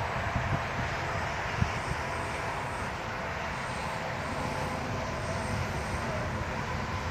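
Ibex RC bushplane's motor and propeller running steadily in flight, a continuous even hum.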